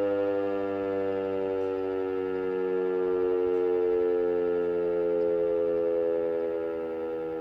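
DS977 motor siren sounding a steady howl heard from about 200 m away, its pitch sinking slowly, a little quieter near the end.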